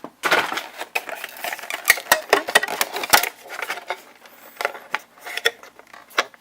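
Game packaging being handled by hand: a dense run of clicks, small knocks and rustling for about three seconds, then scattered clicks.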